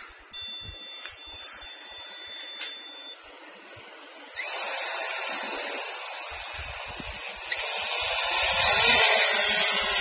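3DR IRIS+ quadcopter's electric motors and propellers: a steady high-pitched tone for about three seconds, then about four seconds in the motors spin up into a loud, whirring buzz. It grows louder with a low rumble near the end as the quadcopter lifts off into a hover.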